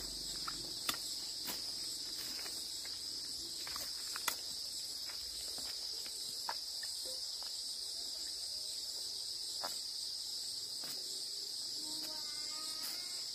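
A steady, high-pitched chorus of insects, such as crickets, with scattered faint clicks and snaps. A short chirping call comes near the end.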